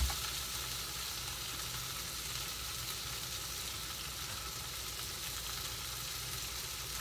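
Salted mackerel sizzling steadily in a frying pan.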